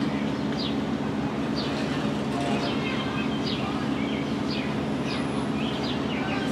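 Birds chirping, short high calls about once a second, over a steady low mechanical hum.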